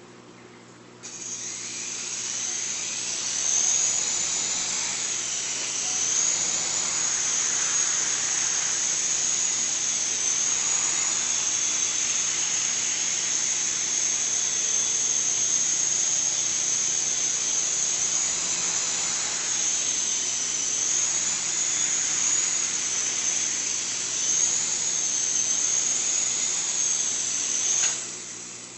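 Radio-controlled helicopter's motor and rotor running: it starts about a second in, builds up, then holds a high whine that wavers up and down in pitch, and stops near the end.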